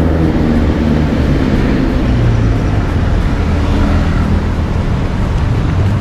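City street traffic: vehicle engines running and passing, with steady road noise.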